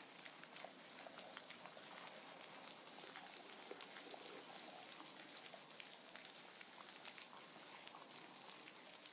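Faint, steady rain falling, with many single drops ticking on a surface.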